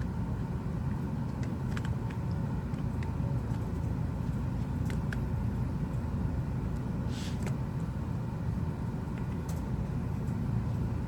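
Steady low background rumble, with a few faint light clicks of small plastic phone parts being handled.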